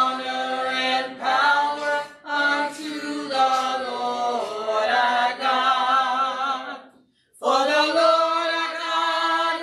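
Church praise team of men and women singing a slow gospel praise song together in long, held phrases, with a short breath break about seven seconds in.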